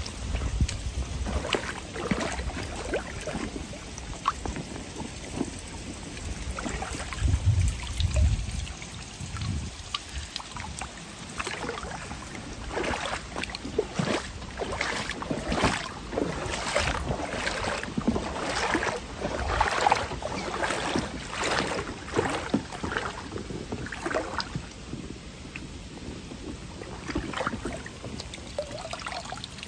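Shallow stream water splashing and sloshing as someone wades through it, in a run of short splashes that grows thickest in the middle. A low rumble comes near the start and again about seven seconds in.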